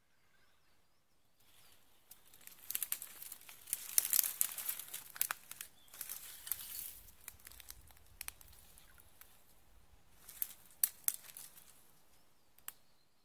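Close rustling and crinkling with many sharp clicks, loudest a few seconds in, then a few more clicks near the end.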